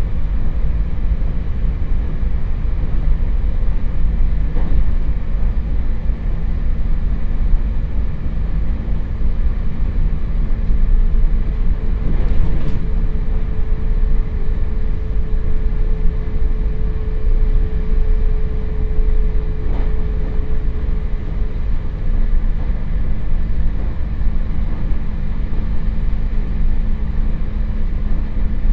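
Inside a JR Hokkaido 721 series EMU motor car (KuMoHa 721) coasting with power off: steady rumble of the wheels on the rail and a low hum, broken by a few light knocks. A faint steady tone comes in for about ten seconds midway.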